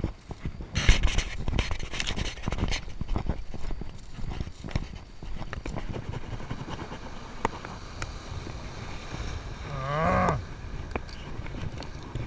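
Wind buffeting the microphone, with a run of knocks and clatter in the first three seconds. About ten seconds in comes a short low sound that rises and then wavers in pitch.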